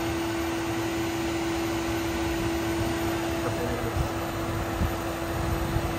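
Steady machine hum with one constant mid-pitched tone over a low, uneven rumble.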